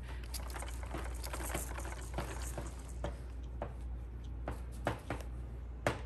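Irregular light taps and clicks: a quick flurry in the first half, then half a dozen separate, sharper taps, the loudest near the end, over a steady low hum.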